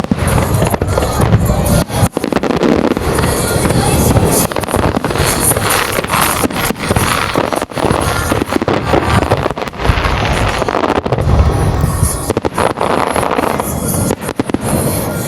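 Aerial fireworks bursting in quick succession, a dense run of sharp bangs with crackling and low booms, over music playing from loudspeakers.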